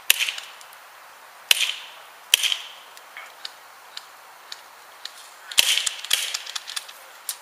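Airsoft gunfire: single sharp snaps, about five loud ones irregularly spaced with fainter ticks between.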